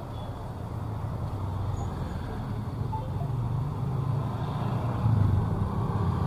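Low steady rumble of road traffic heard from inside a slowly moving car, getting louder about five seconds in as motorbikes pass close by.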